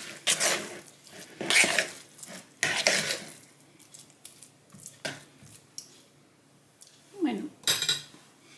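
A metal spoon stirring and scraping a wet, grainy dough of grated carrot, oat flakes and corn flour in a plastic bowl. The strokes come in quick succession for about three seconds, then thin out to a few soft clicks. Near the end there is a short falling sound and a brief clatter.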